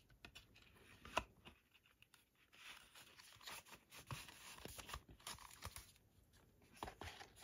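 Faint rustling and light taps of card packaging being handled, with one sharper click about a second in.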